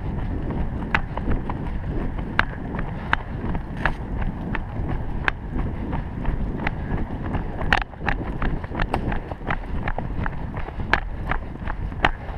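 Running footsteps on a dirt trail, with sharp knocks about every half second, over a steady rumble of wind buffeting the microphone.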